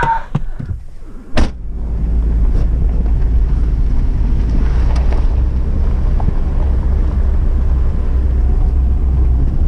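A vehicle door slams shut about a second and a half in, then the vehicle's engine runs steadily with a low rumble.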